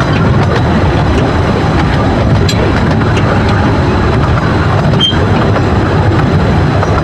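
Open passenger carriages of a 15-inch-gauge miniature railway running along the track: a steady rumble of wheels on rail, with occasional sharp clicks.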